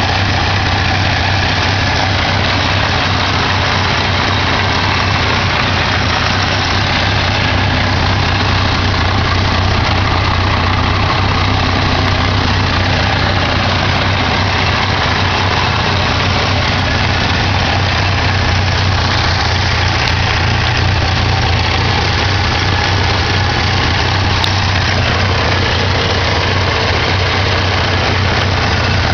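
1987 Ford Ranger's 2.3-litre four-cylinder engine idling steadily but roughly, a rough idle that the owner thinks probably needs the carburetor rebuilt or tuned after the truck has sat unused.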